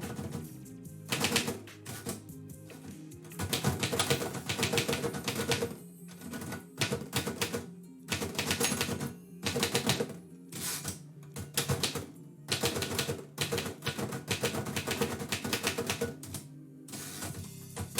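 Typewriter keys clacking in quick bursts with short pauses between, as someone types, over quiet background music.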